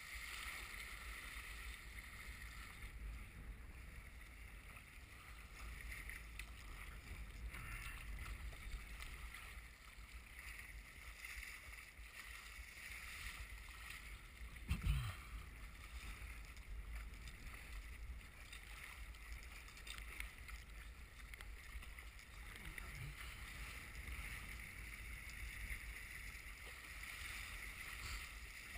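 Strong wind buffeting the microphone and choppy, wind-driven waves washing around a sea kayak under paddle. One sharp thump stands out about halfway through.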